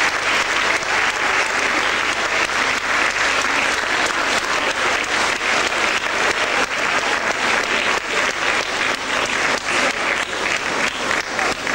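Audience applauding steadily, many hands clapping together without a break.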